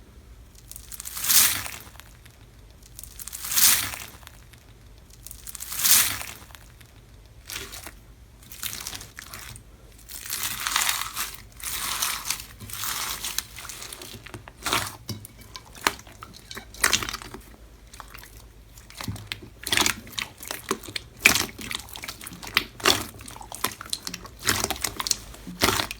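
Slime being worked by hand: three slow presses, about two seconds apart, then a long run of quick crackling and popping as it is squeezed and poked.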